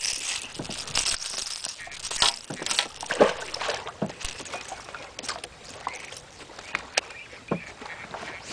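Small waves slapping and sloshing against the side of a boat, with scattered sharp splashes and knocks at irregular intervals.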